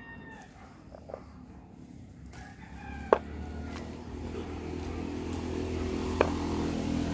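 A rooster crowing in the background, with two sharp snaps about three and six seconds in. A low engine hum grows louder through the second half.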